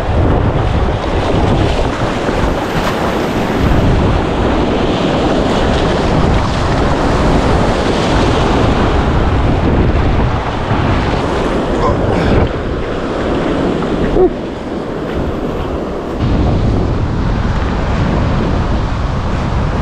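Wind buffeting the microphone over the steady rush of surf breaking on a beach. The low wind rumble eases for a few seconds past the middle, then comes back.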